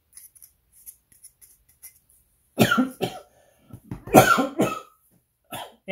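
A man coughing: two hard coughs, the first about two and a half seconds in and a longer, louder one about a second later, with a short catch near the end.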